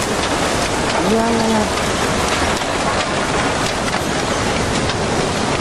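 Loud steady rushing of tsunami floodwater, full of small crackles. A short voice is heard briefly about a second in.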